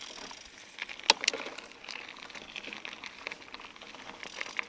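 Kellys Gate 50 bicycle riding over a gravel road: tyres crunching and the bike rattling in many small clicks, with a sharp knock about a second in.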